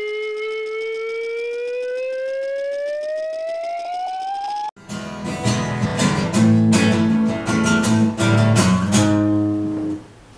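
A single steady tone that slowly rises in pitch cuts off suddenly about halfway through. It gives way to an acoustic guitar being strummed in loud, rhythmic chords, which drop away just before the end.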